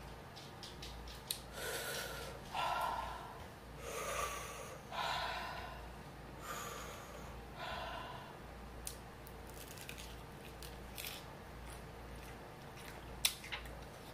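A person taking about six heavy, breathy breaths in the first eight seconds, panting against the burn of the Scorpion hot sauce. After that, she bites into a crispy fried chicken wing and chews, heard as a string of short crunchy clicks with one louder crunch near the end.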